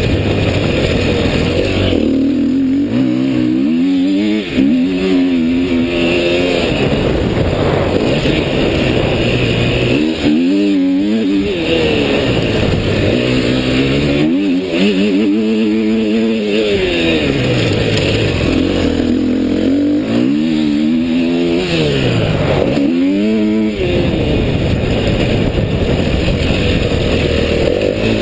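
Motocross dirt bike engine under way on a dirt track, its revs climbing and dropping several times as the rider works the throttle.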